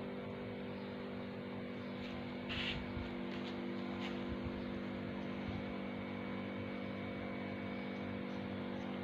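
A steady machine hum, with a brief dry crunch about two and a half seconds in as a dried cow-dung cake is broken and dropped into a clay stove, and a few faint clicks.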